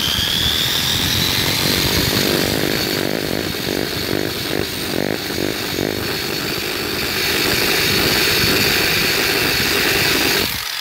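Harbor Freight electric surface conditioning tool (drum sander) running with its abrasive drum grinding against rusty, painted steel. Its motor whine rises at the start as it comes up to speed and then holds steady. The tool shuts off at the very end.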